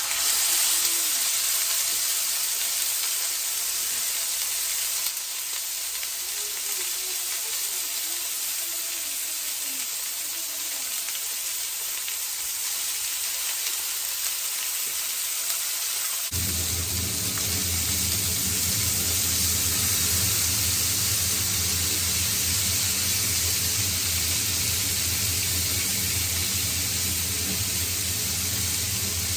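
Thin slices of marinated meat sizzling steadily as they sear in a hot grill pan. About halfway through, a low steady hum starts up under the sizzle.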